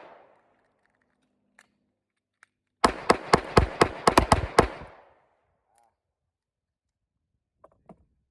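A rapid string of about a dozen handgun shots fired in roughly two seconds, starting about three seconds in, with a couple of faint clicks before them.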